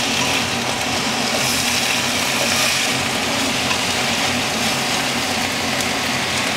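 Okra sizzling in oil and soy sauce in a hot wok while being stir-fried with chopsticks: a steady hiss over a low, even hum.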